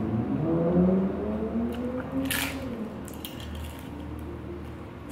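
A man's drawn-out wordless 'mmm', wavering in pitch, then one short crisp crunch about halfway through and quieter eating as he bites into a folded slice of pizza.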